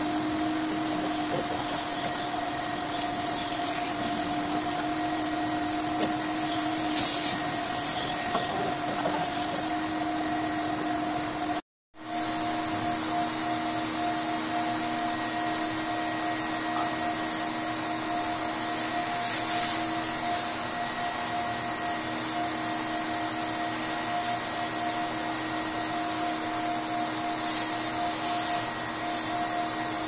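Electric pressure washer running with a steady motor hum, with hissing swells as water is sprayed onto the air conditioner's indoor coil fins to clean them.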